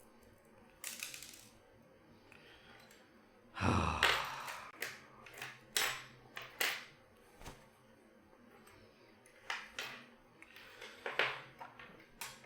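Irregular small metal clicks and taps from a lock cylinder being taken apart, with tiny inner key pins and master wafers dropping onto the work surface; the loudest is a short clatter about four seconds in.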